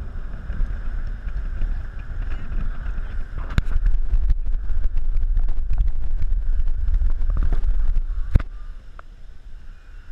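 Low rumble of a moving car heard from inside, with scattered knocks and clicks. A sharp thump comes about eight seconds in, after which the rumble quietens.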